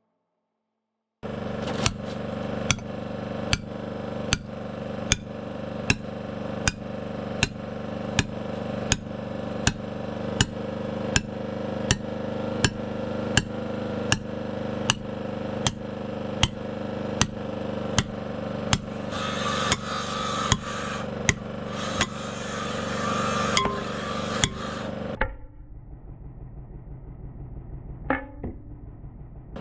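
Steady, evenly spaced hammer strikes, a bit more than one a second, over a steady engine hum, driving rebar in. Near the end a harsher hiss joins for a few seconds, then the strikes stop and only a quieter rumble is left.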